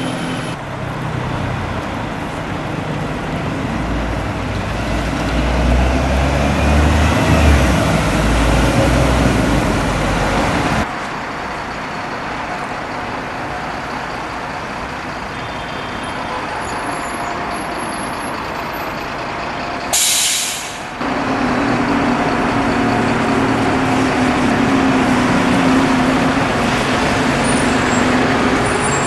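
Diesel buses running and pulling away, with a heavy low engine rumble in the first third and a short, sharp hiss of air brakes about two-thirds of the way through.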